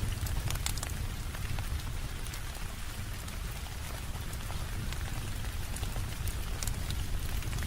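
Steady rain with a strong low rumble underneath, mixed with the scattered sharp pops and crackles of a wood fire. The crackles come thickest near the start and again near the end.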